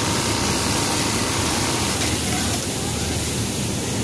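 Industrial programmable pattern sewing machine running: a steady mechanical noise with hiss, even throughout.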